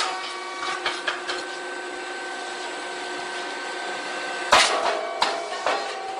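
A puffed chip and rice-cake popping machine runs a cycle. After a few clicks, it gives a steady hum with a high held whine while the grain is pressed and heated in the mold. About four and a half seconds in comes a loud, sudden pop as the mold opens and the puffed chips burst out, followed by a couple of knocks.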